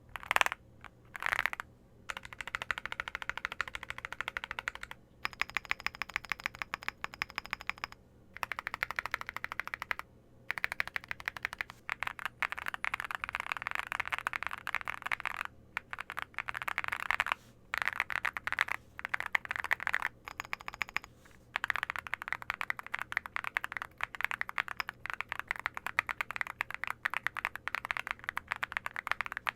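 Fast typing on a mechanical keyboard fitted with Cerakey Ceramic V2 ceramic keycaps. The keystrokes come in quick runs broken by short pauses, with a few louder single key strikes near the start.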